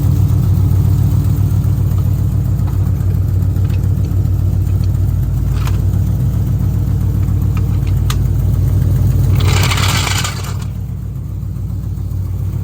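Cammed Ford Crown Victoria's 4.6-litre V8 running at a steady idle with a fast, uneven pulsing beat from its aftermarket camshaft. About ten seconds in, a short rush of noise is heard, after which the engine sounds a little quieter.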